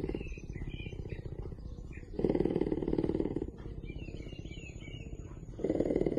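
Cougar purring, a steady fine rattle that swells louder for about a second every three to four seconds.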